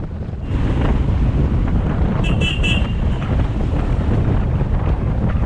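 Motorcycle riding noise with heavy wind buffeting on the microphone. A vehicle horn beeps three times in quick succession about two seconds in.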